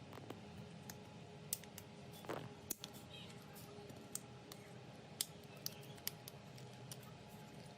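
Faint, irregular light clicks and taps of small hand tools working on a phone, with a brief scrape about two and a half seconds in.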